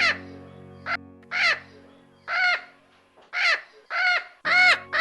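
Parrot squawking: a series of harsh calls, about one a second, coming quicker near the end, over light background music.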